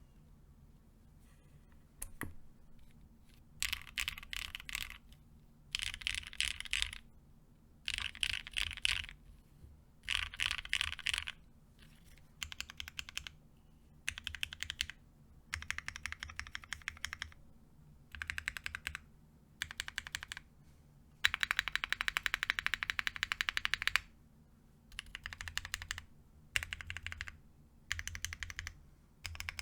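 Mechanical keyboard typing in short runs of rapid keystrokes with brief pauses between them: Cherry MX Black Hyperglide linear switches in a gasket-mounted, plateless JJW Derivative with GMK keycaps. About 21 seconds in comes a longer, louder run of fast keystrokes lasting about three seconds.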